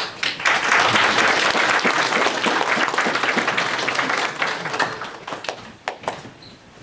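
Audience applauding. The clapping swells in about half a second in, is loudest for the next few seconds, then thins to scattered claps near the end.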